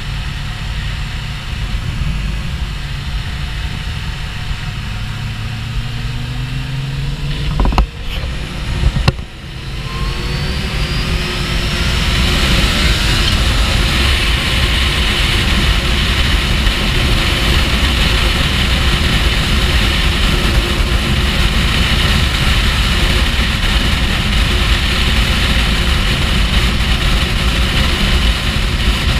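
Kawasaki Ninja H2's supercharged inline-four heard from the rider's seat, running steadily at first, then accelerating with its pitch rising after a couple of sharp knocks about eight seconds in. From about twelve seconds on, a loud steady rush of wind and engine at motorway speed.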